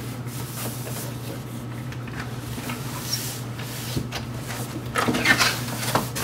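Cardboard box and packing inserts scraping and knocking as a 3D printer is lifted out of its shipping box: scattered knocks, then a louder stretch of scraping and rustling near the end, over a steady low hum.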